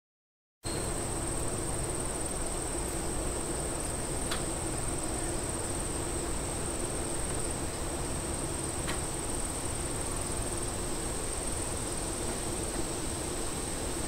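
Cicadas buzzing: one steady, high-pitched continuous drone over a soft background hiss, starting just after the beginning.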